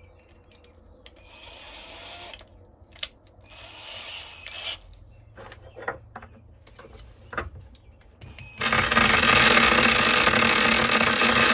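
A few light clicks and handling sounds, then an electric drill starts about three-quarters of the way in and runs steadily and loudly, drilling out a knife's pin hole to 3/16 inch.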